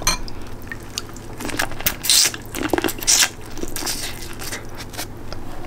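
Close-up eating sounds: wet smacking and small crackling clicks of chewing and handling food, with two louder, hissy smacks about two and three seconds in.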